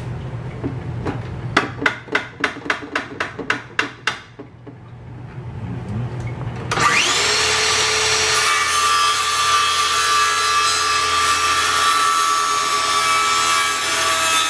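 About a dozen quick clicks and taps. Then, about seven seconds in, a cordless circular saw spins up suddenly and runs steadily with a high whine while it cuts a thin strip of trim.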